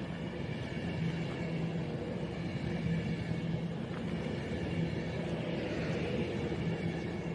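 Avanti West Coast Class 390 Pendolino electric train running through the station without stopping: a steady rumble with a constant low hum and faint higher whines, holding the same level throughout.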